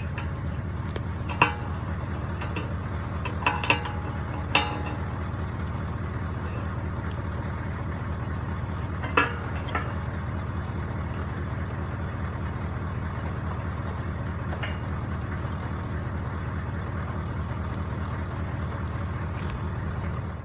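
A vehicle engine running steadily at low revs, with a few sharp clinks and rattles in the first half.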